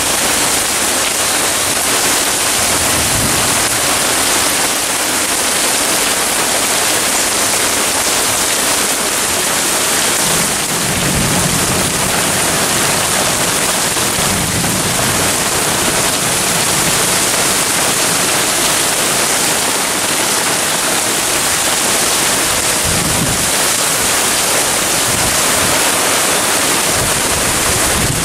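Heavy thunderstorm rain pouring steadily, a dense even hiss driven by strong wind. A low rumble swells briefly about ten seconds in.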